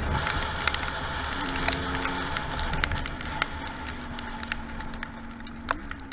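50cc two-stroke dirt bike engine with a Metrakit exhaust running under way, its note easing lower and quieter as the bike slows, then rising briefly near the end. Many sharp ticks and crackles over a steady hiss.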